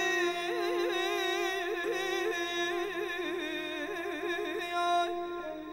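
Male Azerbaijani singer holding a long, ornamented vowel line in mugham style, the pitch wavering up and down, over a steady held drone. The voice fades out near the end.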